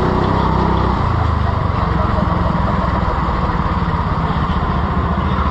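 Go-kart's small petrol engine running. Its steady note drops about a second in as the kart comes off the throttle, then runs on lower and rougher.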